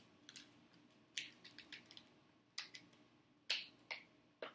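King crab leg shell being cracked and broken open by hand: about ten sharp, irregular cracks and clicks.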